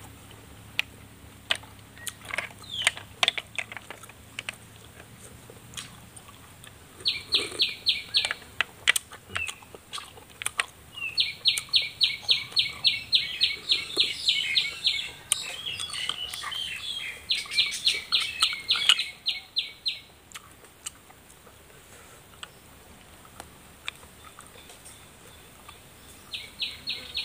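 A bird trilling in several bouts of fast, evenly spaced chirps, about nine a second, over scattered clicks, smacks and sucking noises of cooked snails being slurped from their shells.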